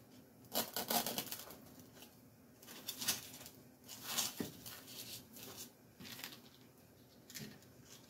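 Stiff coconut palm leaf strips rustling and crackling in the hands as they are bent into loops and worked into floral foam, in a string of short, irregular bursts.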